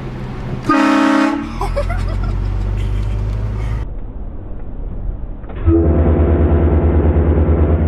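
Compressor-fed vehicle air horns give one short, loud blast about a second in, over a vehicle's low running hum. From about six seconds a louder, lower-pitched, pulsing tone sets in and keeps going.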